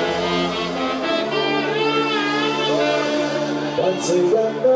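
Live konpa band playing: steady held chords under a wavering, vibrato melody line, with a short cymbal-like hiss about four seconds in.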